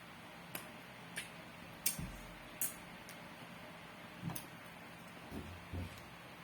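Close-up mouth sounds of someone eating a fish head: a handful of sharp, wet clicks from lips and mouth, spaced irregularly, with a few soft low sounds of chewing and sucking in between.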